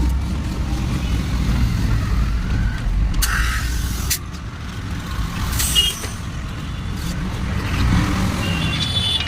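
Steady low engine rumble of passing road traffic, with two short hisses of air, about three seconds in and again about six seconds in.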